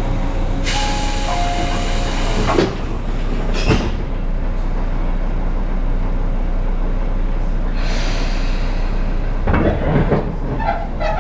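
Inside a Tobu 10000-series commuter train car: a loud hiss of air begins about a second in and lasts a few seconds over the car's steady rumble, and a cluster of knocks comes near the end.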